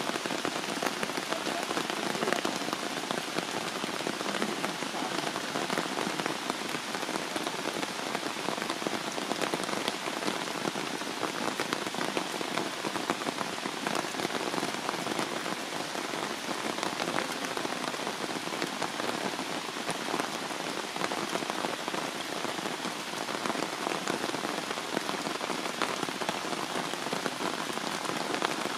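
Heavy rain falling steadily, a dense hiss of countless small drops striking wet stone and leaves.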